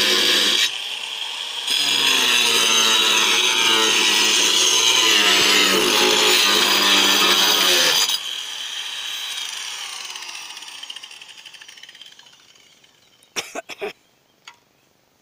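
Angle grinder cutting through a corrugated asbestos-cement slate sheet, loud steady grinding with a brief lighter stretch about a second in. About eight seconds in the cut ends and the grinder spins down, its sound fading away over several seconds. A few sharp knocks near the end.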